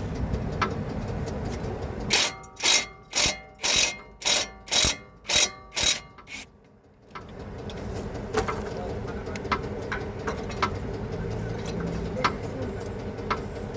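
A power tool driving a T45 Torx bit on the brake caliper bolts, run in about eight short pulses of roughly two a second, followed by a few faint clicks.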